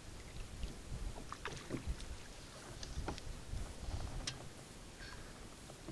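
Choppy water lapping against a kayak hull, with wind rumbling on the microphone and a few light ticks and small splashes scattered through.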